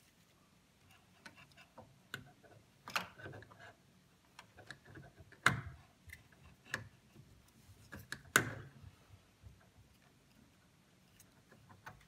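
Light clicks and taps of a Deepcool Captain 360X AIO pump block being seated on the CPU mount and its mounting screws turned by hand, with three sharper knocks about three, five and a half and eight and a half seconds in.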